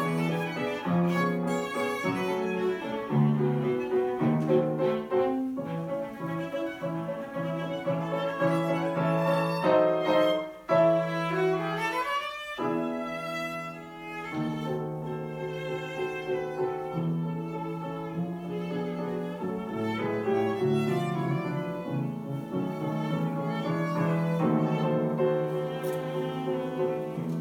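A bowed string instrument and a grand piano playing classical music live, with sustained bowed notes over piano accompaniment and a quick upward run about twelve seconds in.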